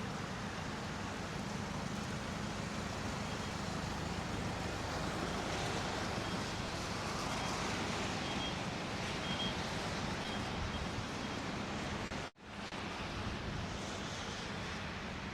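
Steady outdoor city-street noise: vehicle rumble with a low hum and wind on the microphone, dropping out for an instant about twelve seconds in.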